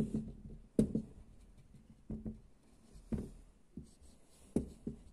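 Dry-erase marker writing on a small whiteboard: a handful of short, separate pen strokes and taps against the board, the loudest about a second in.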